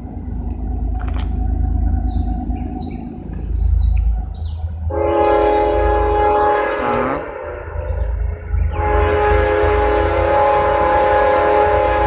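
Approaching diesel locomotive's multi-note air horn sounding two long blasts for the grade crossing, the first about 5 seconds in for about two seconds, the second starting near 9 seconds and still holding at the end, over a low engine rumble.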